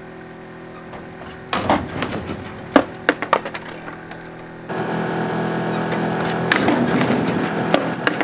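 Skateboard slam: the board and rider clattering off a satellite dish and hitting the pavement in a burst of sharp knocks, the loudest about three seconds in. A steady mechanical hum runs under it and gets louder about halfway through.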